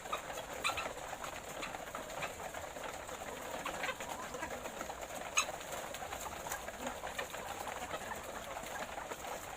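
A flock of laying hens clucking and murmuring continuously, with a few sharp clicks among the calls.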